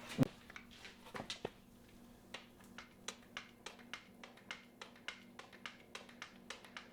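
Hand-lever grease gun being pumped into a skid steer's grease fitting: a sharp click about a quarter second in, then a run of quick clicks, about three a second, over a faint steady hum.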